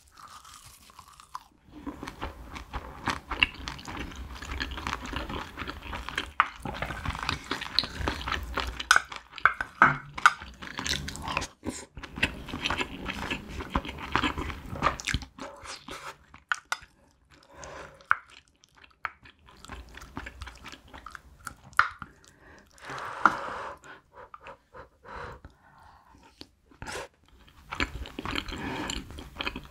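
Close-miked chewing and crunching of a mouthful of rice and spicy braised cutlassfish wrapped in toasted seaweed. The chewing is dense for the first half, then comes in sparser patches, picking up again near the end.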